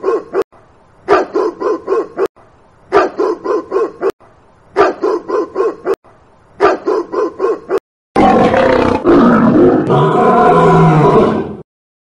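A dog barking in quick runs of about five barks, the same run repeating every couple of seconds. About eight seconds in it gives way to a longer, deeper, rougher growling roar.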